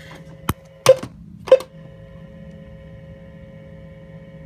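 Weather radio receiver playing dead air during a pause in the broadcast: a steady hum with three sharp clicks in the first two seconds.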